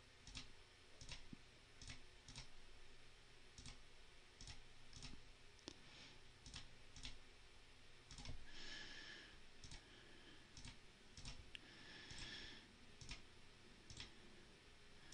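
Faint, quick clicks of a computer mouse, about two a second, with two short soft rushes of noise near the middle.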